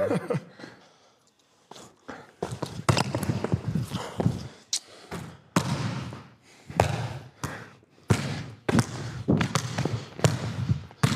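A basketball being dribbled on an indoor court floor: sharp bounces in uneven runs, roughly one or two a second.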